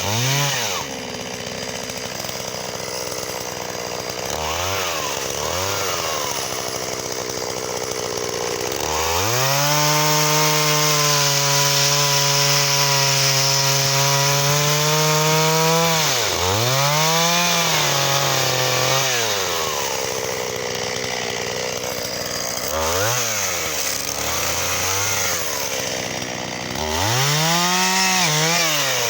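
Shindaiwa 488 two-stroke chainsaw, blipped up and down from idle several times. About a third of the way in it holds full throttle steadily for about seven seconds, as in a cut through wattle, then drops back to idle between further short revs.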